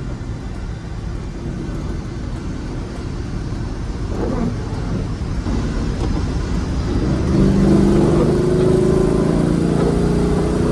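Rover SD1 Vitesse's 3.5-litre V8 driving on the road, a steady engine note over low road rumble. The engine note grows louder and stronger about seven seconds in.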